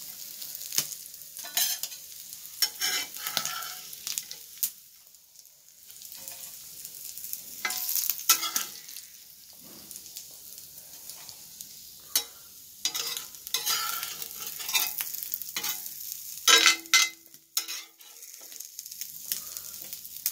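A steel spatula scrapes and knocks against a cast-iron tawa in irregular strokes as roasted sardines are lifted out, with hot oil sizzling under the fish.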